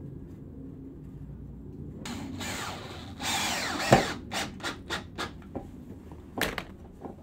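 Cordless drill driving a screw into a wooden slat for about two seconds, its motor pitch shifting as the screw bites. It ends in a sharp knock, followed by several short knocks and clicks of wood and tool being handled.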